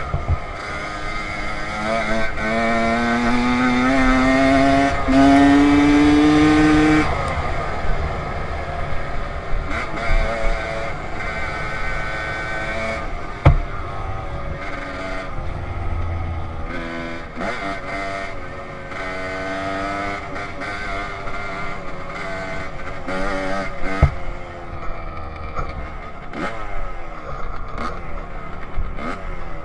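Dirt bike engine under way, recorded on the bike: it winds up in one long climb in pitch from about two to seven seconds, then drops and keeps rising and falling with the throttle. A few sharp knocks come through, the loudest about halfway through.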